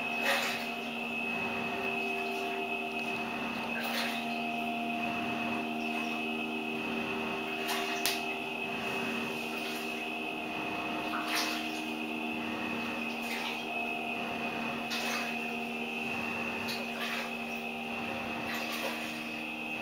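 Washing machine running: a steady motor hum made of several constant tones, with short swishes every second or two.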